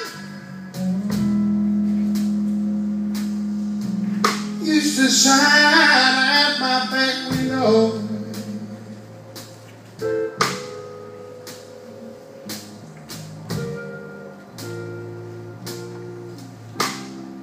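Live blues band playing: long held electric guitar and bass notes, a male singer's phrase a few seconds in, then sparse stop-time notes broken by sharp percussive hits.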